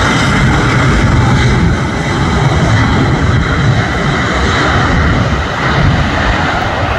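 Embraer 190's two General Electric CF34-10E turbofan engines at takeoff power as the jet accelerates down the runway: loud, steady rushing jet noise with a high whine held throughout.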